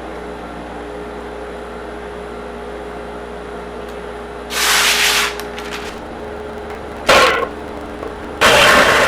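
Random orbital sander on a wood floor: a steady motor hum, broken by louder hissing rushes about halfway through and briefly a couple of seconds later, then a sustained louder rush near the end.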